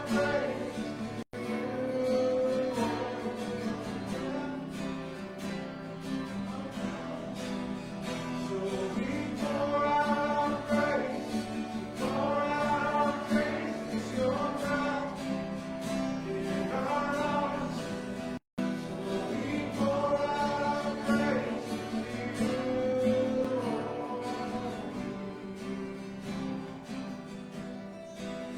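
Congregation and worship team singing a worship song together, accompanied by guitar. The audio cuts out for an instant twice.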